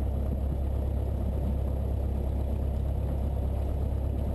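Cessna 172's piston engine and propeller running steadily at low taxi power, heard from inside the cabin as an even, low drone.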